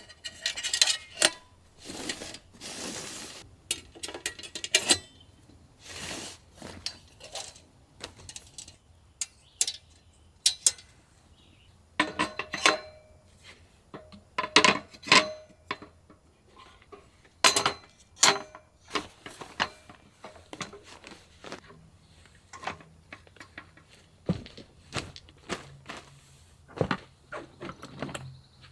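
Metal cookware and utensils being handled: a long series of irregular clinks and knocks, some ringing briefly. A faint low steady hum comes in near the end.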